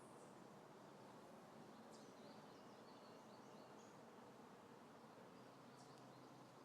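Near silence: faint, high bird chirps come and go over a steady low hiss, with a short run of them about two to three seconds in.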